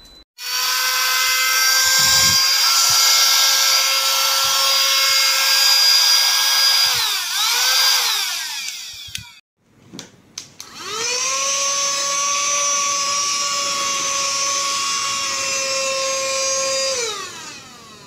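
DESSINO 5500Pa cordless handheld car vacuum cleaner's motor whining at a steady pitch, switched on twice. It winds down with falling pitch about seven seconds in after a brief restart, then is switched on again after a few clicks about ten seconds in and runs until it winds down near the end.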